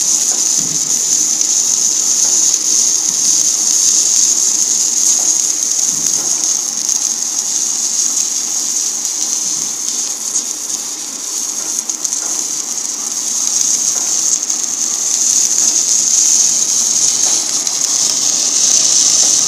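MIG welding arc running steadily on a steel plate at about 330 A and 32 V: a continuous, even hiss that eases slightly midway.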